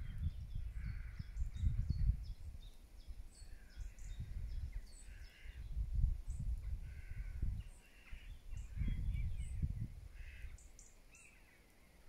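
Wind buffeting the phone's microphone in gusts, with birds calling over it: repeated harsh calls and many short, high chirps.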